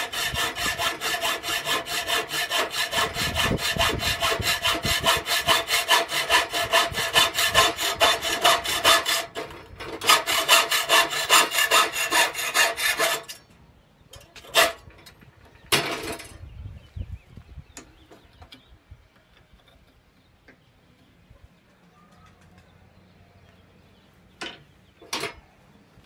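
Hacksaw cutting through a thin metal tube held in a vise, in quick, even strokes with a short break about nine seconds in. The sawing stops about thirteen seconds in, and a few sharp knocks follow as the tube is handled.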